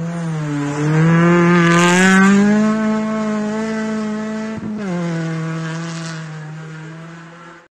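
Rally car engine working hard at high revs as the car slides past on a snow-covered stage, with a burst of tyre and snow hiss as it goes by. A little before five seconds in, the engine pitch drops suddenly with a gear change, and the engine then fades as the car pulls away.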